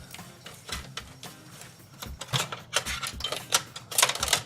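Irregular clicks and light rattles of cables and plastic connectors being handled and plugged in inside a PC case. The clicks come more often in the second half, with the loudest near the end.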